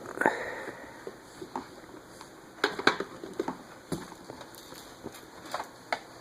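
Hard toys knocking and clattering as a toddler rummages through a toy box and drops them, in scattered irregular knocks and clicks.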